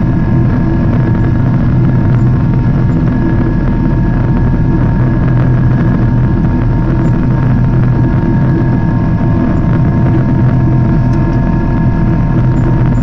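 Steady jet engine drone and rushing airflow heard inside a Boeing 777-300 airliner's cabin during the climb after takeoff. It is a loud, even rumble with a few steady tones over it.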